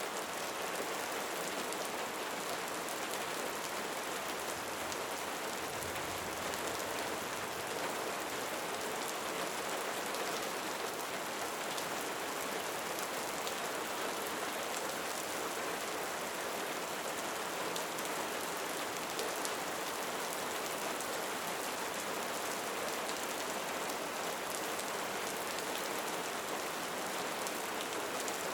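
Steady rain falling, an even hiss of many drops that does not change over the whole stretch.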